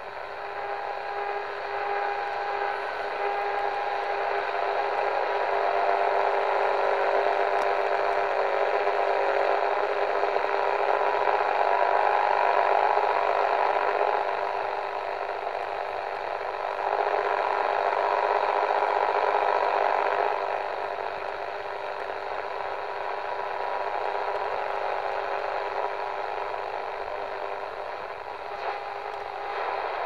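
Medium-wave (AM) radio band noise: hissing static with a few faint steady whistle tones running through it. It swells louder twice for several seconds at a time and then eases back.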